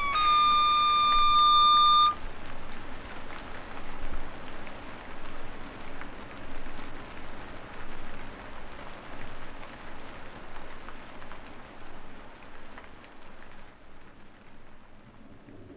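Song outro: a held high guitar note cuts off about two seconds in. A hiss of noise with scattered faint clicks follows, swelling and ebbing and slowly fading out.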